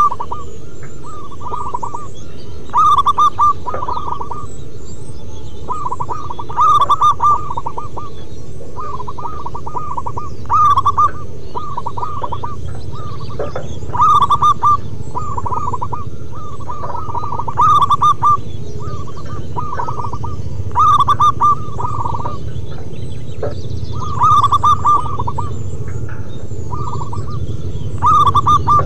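Zebra dove (perkutut) song: phrases of quick, staccato cooing notes repeating every few seconds, the loudest phrases about every three and a half seconds, over steady low background noise.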